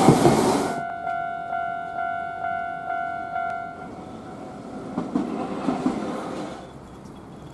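A Nankai electric train running past a level crossing, its noise cutting off sharply about a second in. The crossing's warning bell then clangs about twice a second and stops about halfway through, leaving faint street noise.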